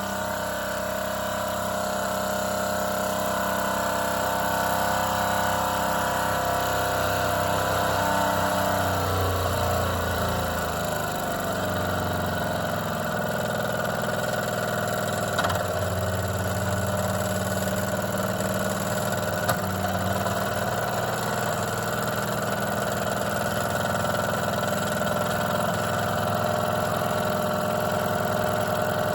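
Mamod SP5 toy stationary steam engine running steadily under steam. Its speed sags about a third of the way in and picks up again, and there are a couple of small clicks later on.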